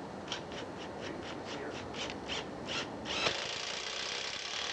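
Tool work on the end of a gutter: a run of short, rasping strokes about three a second, then from about three seconds in a steady, louder noise that runs on.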